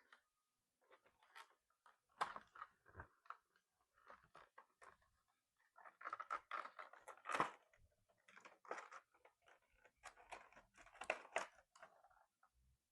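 Faint, irregular crinkling and clicking of plastic packaging and small plastic toy pieces being handled and pulled apart, with the sharpest click a little past the middle.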